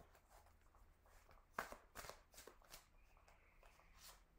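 Tarot cards dealt from the deck onto a cloth-covered table: five faint, short clicks and slaps, four spaced through the middle and one near the end.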